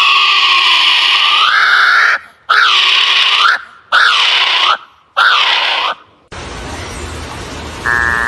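Four loud, drawn-out animal screams, each dipping and then rising in pitch, the first about two seconds long and the next three shorter, with short pauses between them. They are followed by a steadier hissing sound.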